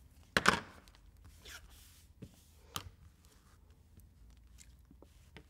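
Fabric and a clear acrylic quilting ruler being handled on a cutting mat. A loud knock-and-rustle comes about half a second in, then lighter scattered rustles and taps, including one sharp click about three seconds in.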